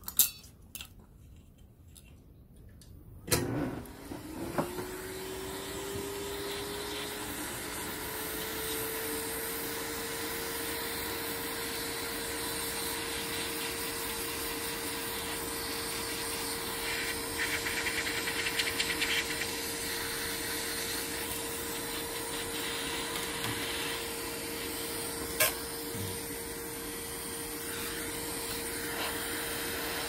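Hot air gun switched on with a click about three seconds in; its fan spins up, the whine rising in pitch for several seconds before settling, then runs steadily with a rush of blown air. A single sharp click comes about 25 seconds in.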